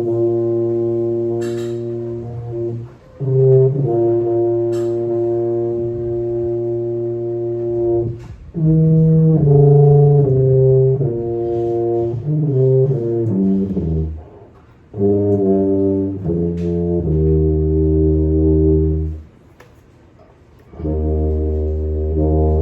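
Tuba played solo: low, long-held notes in phrases, with a run of quicker changing notes about halfway through and short breaks for breath between phrases.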